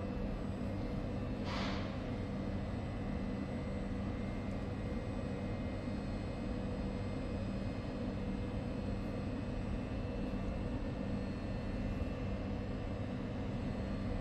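Railway station ambience: a steady low rumble and mechanical hum with several constant tones, and a short hiss about one and a half seconds in.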